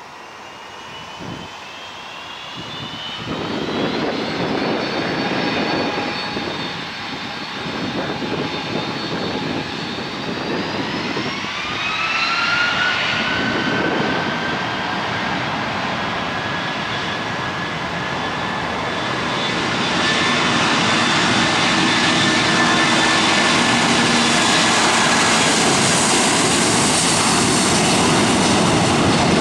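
Boeing 757 jet engines spooling up: a whine rises in pitch a few seconds in and again about eleven seconds in. From about two-thirds of the way through, a louder, steady rush of jet noise takes over as the airliner applies takeoff power and rolls down the runway.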